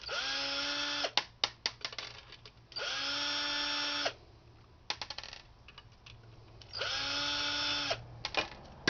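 Power drill run in three short bursts of about a second each, each spinning quickly up to a steady whine. Small clicks and knocks of parts being handled come between the bursts.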